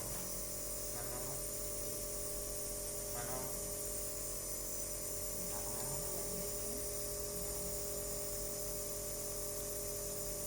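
Steady electrical hum and buzz, with three faint, short, wavering squeaks about one, three and six seconds in.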